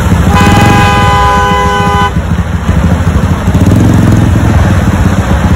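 A vehicle horn gives one long honk of nearly two seconds, starting just after the beginning, over the steady low rumble of engines in stopped traffic.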